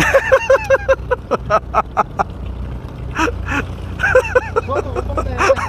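A person laughing in several quick runs of short syllables, over the low steady hum of the boat's running engine.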